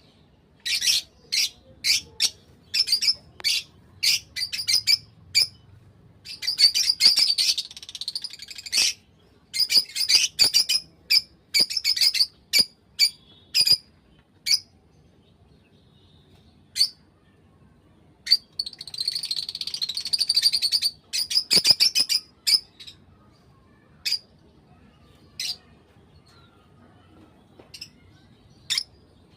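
Fischer's lovebirds chirping: short, shrill chirps in irregular bursts, twice building into longer runs of rapid chirping, with quiet gaps between.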